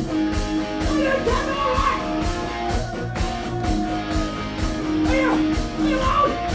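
Rock band playing live: electric guitars over a drum kit keeping a steady beat, with a singer's voice coming in over them in places.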